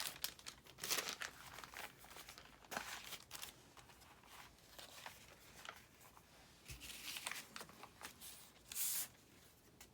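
Sheets of paper being handled and shuffled: a string of short rustles and crinkles, with a louder rustle near the end.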